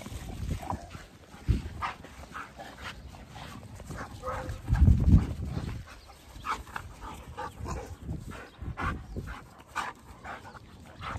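Two dogs, a pit bull-type dog and a husky, playing together, with scattered short dog noises. A louder low rumble comes about five seconds in.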